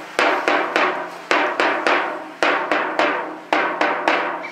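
A drum beaten in a steady rhythm, about three strikes a second with a short gap after every few, each strike ringing briefly. The beating stops near the end.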